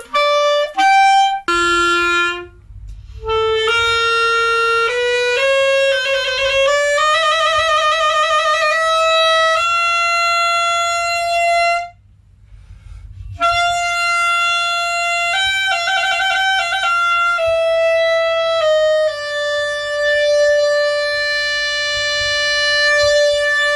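Solo instrumental music: a single melodic line on a woodwind-like instrument, long held notes with quick trills, pausing briefly about halfway through.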